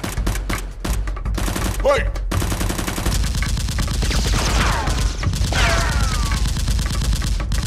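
Rapid gunfire sound effects: burst after burst of shots in quick succession, dubbed over a Nerf blaster firing, with a steady low hum underneath.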